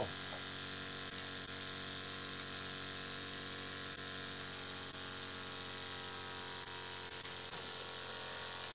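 Small homemade vertical single-cylinder model steam engine, about 5/16 inch bore and stroke, running fast with a steady buzz, like a little electric motor, over a steady hiss.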